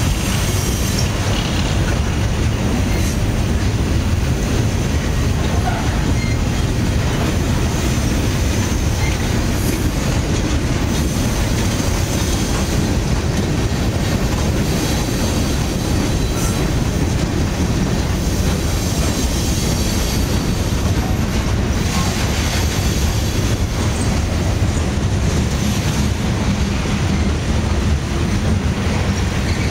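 CSX freight train of covered hoppers and tank cars rolling past at close range: a steady, loud rumble of steel wheels on the rails, with a few faint clanks along the way.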